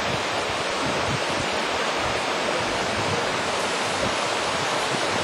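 Wind rushing over the camcorder microphone, a steady hiss with an uneven low buffeting rumble.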